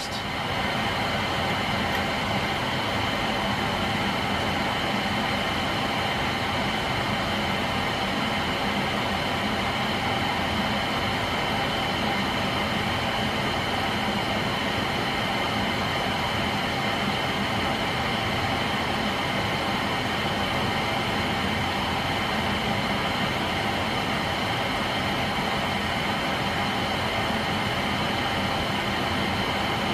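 NuTone Verandah II Deluxe 52-inch ceiling fan running steadily at high speed: an even rush of moving air with a faint steady motor hum.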